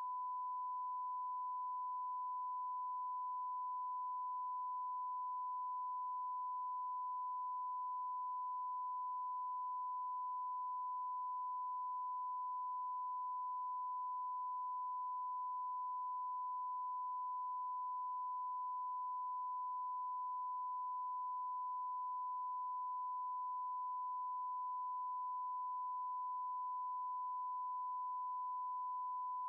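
Steady electronic sine-wave tone held at one pitch, unbroken and unchanging in level.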